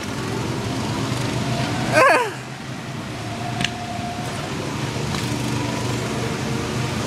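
Go-kart engines running steadily as karts circle the track, with a brief shrill squeal about two seconds in.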